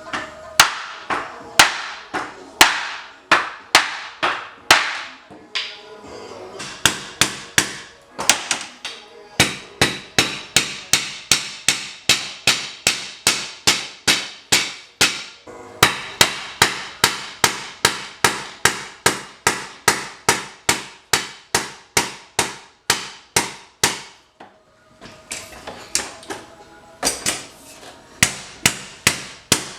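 Hammer blows struck in quick runs of about two to three a second, each a sharp ringing hit, with brief pauses between the runs.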